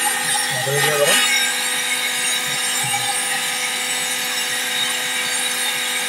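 Hand-held hair dryer running steadily, its motor hum and rush of hot air blowing onto a refrigerator's frosted evaporator coil to melt the built-up ice. A brief low sound rises over it about a second in.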